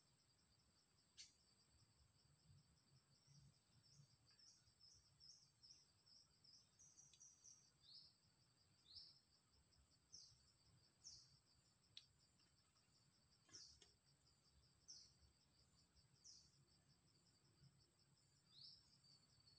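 A bird calling over and over, short high notes that drop in pitch, about one a second, against a steady high-pitched insect trill. All of it is faint.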